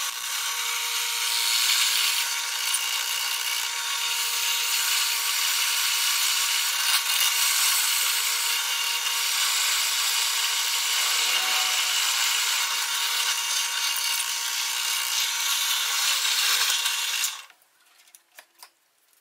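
Bench drill press running steadily with a motor whine while its bit drills through stacked steel parts. The drill stops suddenly near the end, followed by a few faint clicks.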